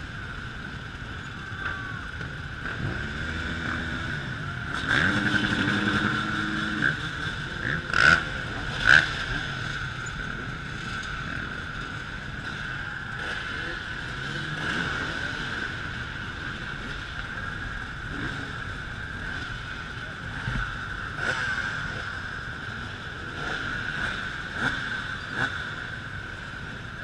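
Many dirt bike and moped engines running and revving together as a crowd of bikes rides past at low speed, with a steady high drone under it all. Two sudden, loud sharp sounds stand out about eight and nine seconds in.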